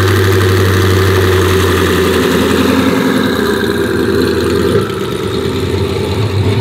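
Twin-turbo C8 Corvette's V8 running at a loud idle just after starting, the note changing about two seconds in and again near five seconds as it creeps forward at low speed.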